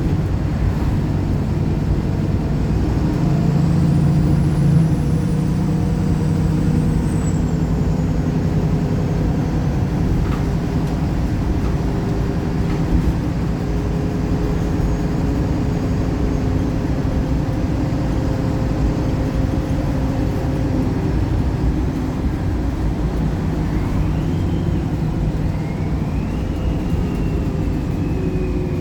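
Wright Pulsar single-deck bus engine running under way, a steady low drone whose tones step in pitch as it changes gear. A high whine rises and then slowly falls over the last few seconds.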